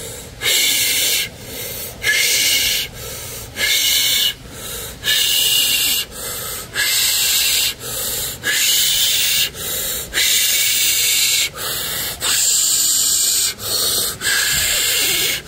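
A man's rapid cyclical mouth breathing in somatic breathwork: continuous in-and-out breaths through the open mouth, about one full cycle every second and a half, with a loud breathy hiss alternating with softer breaths.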